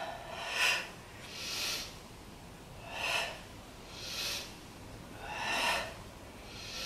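A woman breathing audibly in and out in a steady rhythm, about six breaths in all, paced to a slow stretching movement.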